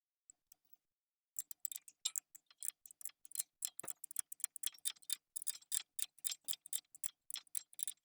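A ratchet clicking in quick, steady strokes, about five clicks a second, starting about a second and a half in, as it tightens a universal brake pad spreader. The spreader is forcing a dual-piston front brake caliper's pistons back into their bores.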